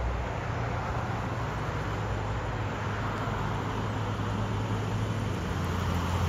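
Steady rushing outdoor noise with a low rumble beneath it.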